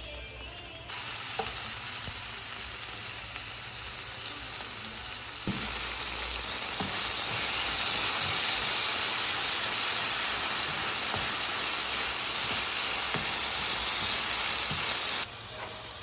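Food sizzling loudly in a hot frying pan as it is stirred, with faint scattered knocks of the utensil. The sizzle starts abruptly about a second in and cuts off suddenly near the end.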